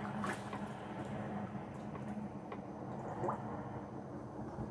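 A hooked tilapia splashing faintly at the water's surface as it is played on the line, a few small splashes and drips over a steady low hum.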